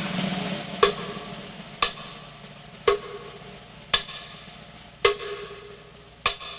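Background music: a sparse percussive beat, one sharp struck hit about once a second, each ringing and fading away before the next.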